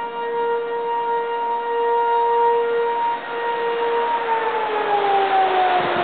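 Outdoor fire siren sounding a steady wail, then about four seconds in its pitch starts to slide down as it begins to wind down. A rushing noise grows underneath toward the end.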